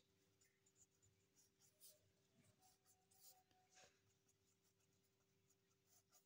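Very faint scratching of a pen writing on ruled notebook paper: a string of short strokes over the first four seconds or so, then almost nothing.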